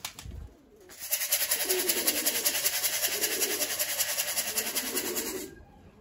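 Pigeons cooing, over a fast, even pulsing noise of about ten beats a second that starts about a second in and stops just before the end.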